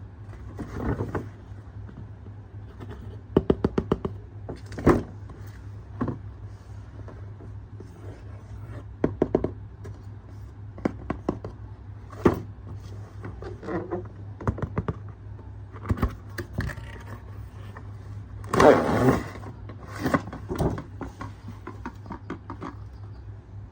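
Objects being handled on a hard surface: scattered light taps, clicks and scrapes, some in quick runs of five or six, over a steady low hum, with a longer, louder scraping rustle about 19 seconds in.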